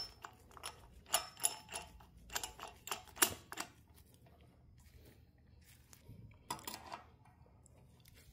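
Light metal clicks and taps from a steel nut and washer being spun onto a bolt by hand, mostly in the first three and a half seconds, with another brief clatter about six and a half seconds in.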